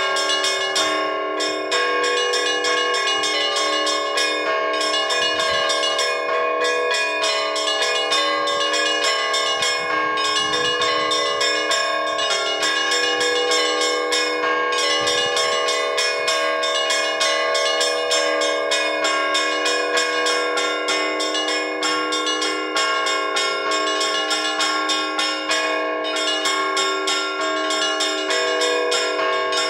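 Orthodox church bells rung from a bell tower: many bells of different pitches struck in a fast, continuous rhythm, their tones ringing on over one another. This is the ringing that calls the faithful to vespers and the all-night vigil.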